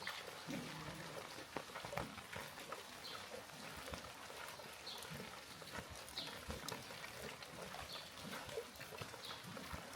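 Steady rain with many scattered drips and light taps, and an occasional short high chirp.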